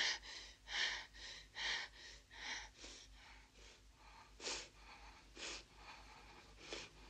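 Heavy breathing from a film soundtrack: quick breaths about one a second, then three sharper gasps spaced further apart in the second half.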